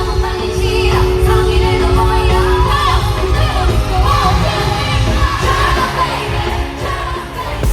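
Loud pop music with singing, heard as a live concert recording with the crowd yelling along.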